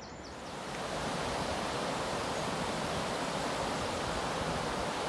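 Steady rush of fast-flowing water, fading in over about the first second.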